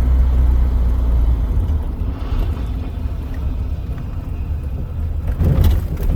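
Car engine running with a steady low rumble that eases off about two seconds in, with a brief clatter near the end.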